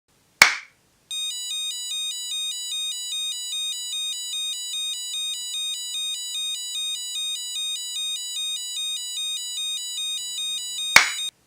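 An Arduino Uno's buzzer sounding an electronic two-tone siren, switching back and forth between two pitches for about ten seconds. A sharp click comes just before it starts and another just before it cuts off, fitting a sound sensor that switches the siren on and off.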